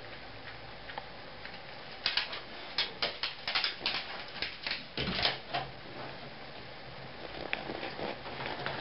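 A flurry of quick, irregular clicks and taps from a cat and dogs moving and feeding on a tiled kitchen floor and washing-machine top, with a low thump about five seconds in.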